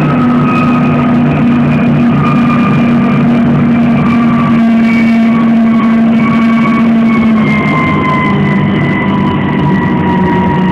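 Vehicle running under way with a steady high whine over a low drone; the whine slowly falls in pitch through the later seconds.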